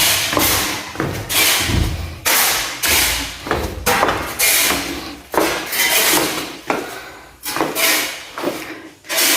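Heavy sacks of cement being dropped one after another onto a pile. Each lands with a dull thud and a short scrape, about once a second.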